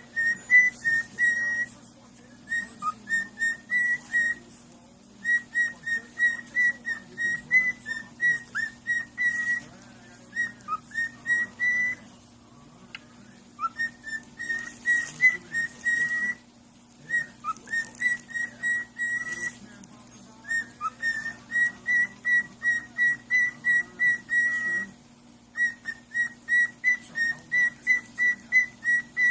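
A pet parrot whistling a fast run of short notes on one high pitch, about four a second, in runs of a few seconds with brief pauses. A steady low hum lies underneath.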